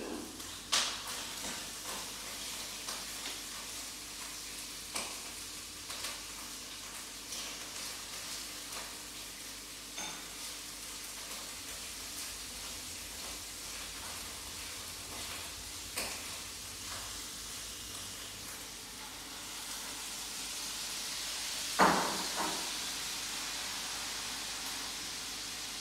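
Handling noise of small metal slug-mold parts: scattered light clicks and taps over a steady hiss, with one sharper knock a little over 20 seconds in, and the hiss growing louder near the end.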